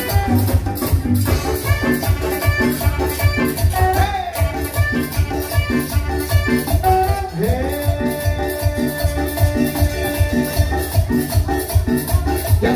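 Live band playing upbeat Latin dance music, led by saxophone over drums and a steady pulsing bass beat, with one long held note in the middle of the passage.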